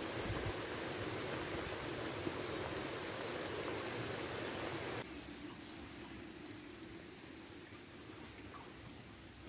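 Floodwater rushing in a swollen rain-fed stream, a steady rushing noise; about five seconds in it cuts abruptly to a quieter, even hiss of steady rain.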